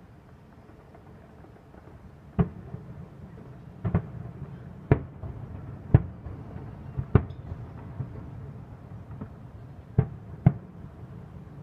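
Aerial firework shells bursting: about eight sharp bangs at irregular intervals, two of them close together near the end, over a steady low rumble.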